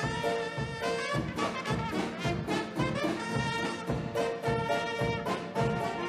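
Big-band swing music with trumpets and trombones playing over a steady drum beat.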